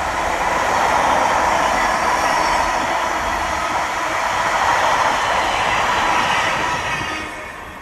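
Container wagons of an intermodal freight train rolling past on the rails: a steady, loud wheel-on-rail noise that fades away near the end as the last wagon goes by.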